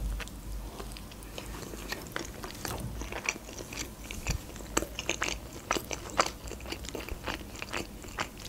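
Close-miked chewing of a mouthful of a soft stuffed bread sandwich, with many small irregular mouth clicks and smacks.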